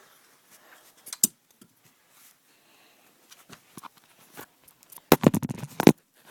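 Handling noise as objects are moved about: a sharp click about a second in, then a quick run of clicks and knocks near the end.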